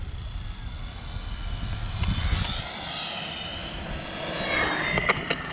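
Electric 1/10-scale RC cars' motors whining, the pitch rising and falling as the cars accelerate and slow across the asphalt, with a few sharp ticks near the end.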